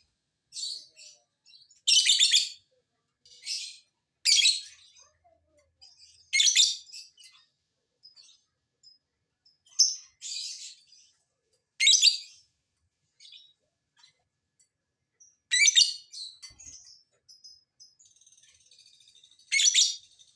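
Lovebirds calling in short, shrill chattering bursts of about half a second, nine or so spread irregularly a couple of seconds apart.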